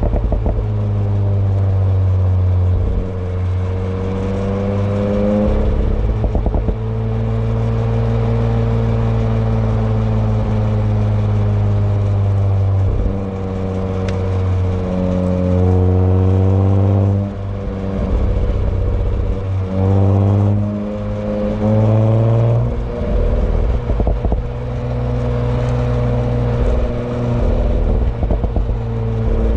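Audi B9 S4's turbocharged 3.0-litre V6 and exhaust under way, the engine note holding and dropping back several times as the car is driven. Clusters of exhaust pops and crackles come through at several points.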